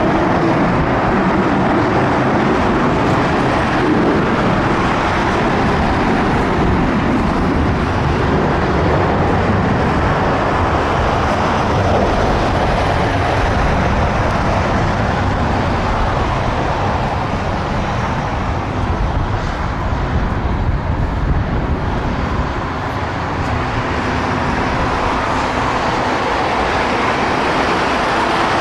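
Boeing 757 freighter's twin jet engines running at taxi power while the aircraft rolls along the taxiway: a steady roar of engine noise that dips slightly past the middle.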